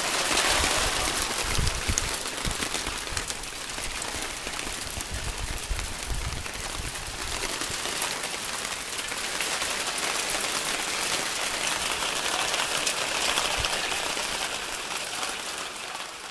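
Hail still falling: a dense, steady patter of small ice pellets striking a wooden deck and patio furniture, full of sharp ticks. There are a few low thumps in the first half.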